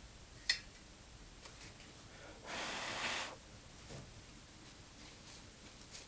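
Quiet room tone with a single sharp click about half a second in, then a short breathy puff of air lasting under a second.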